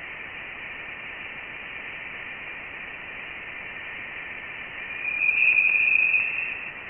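Voyager 1 plasma wave instrument data played through a loudspeaker: a steady hiss with a band of tones at about two to three thousand hertz, growing louder about five seconds in. These are plasma waves in the denser gas outside the heliosphere, the sound that showed Voyager 1 had crossed into interstellar space.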